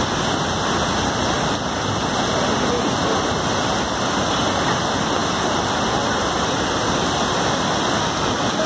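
Flooded river rushing in torrent: a loud, steady, unbroken wash of water noise.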